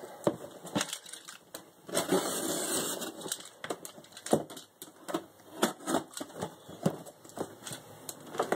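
Cardboard mailing box being handled and opened by hand: scattered knocks and scrapes of cardboard, with a longer tearing, rustling stretch of about a second starting near two seconds in.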